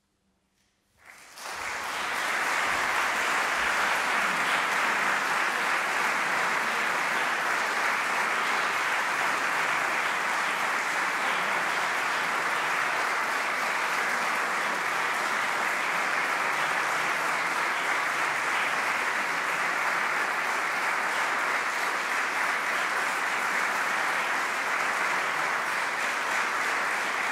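Audience applauding: the clapping breaks out about a second in, swells within a second, then holds steady.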